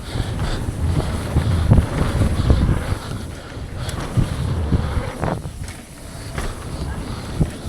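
Wind rushing over the microphone of a mountain bike descending a downhill trail at speed, with the tyres rumbling over dirt and many short knocks and rattles as the bike hits rough ground.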